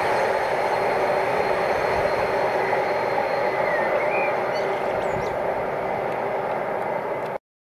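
Container freight train's wagons rolling past on the rails: a steady rumble and rush of steel wheels on track that eases slightly as the last flat wagon goes by and the train draws away. The sound cuts off suddenly near the end.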